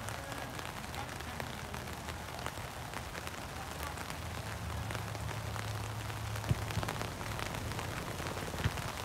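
Rain pattering: a steady hiss dotted with many small drop ticks over a low hum, with two sharp knocks, one about six and a half seconds in and one near the end.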